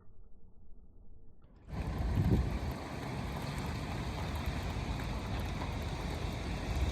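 A faint, muffled low rumble, then about two seconds in a sudden, steady rush of snowstorm wind with low rumbling on the microphone.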